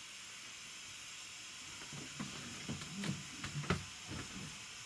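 Faint steady hiss, with a few soft knocks and bumps between about two and four seconds in as a person gets up from a cushioned bench seat and steps across the cabin floor of a river cruiser.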